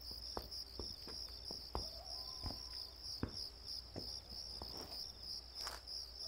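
Crickets chirping in a steady, evenly pulsing chorus, with faint scattered taps beneath.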